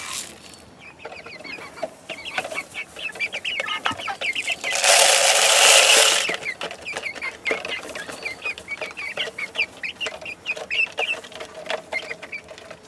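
Young chickens peeping and clucking, a rapid stream of short falling calls. About five seconds in, a loud rustling noise lasts about a second and a half.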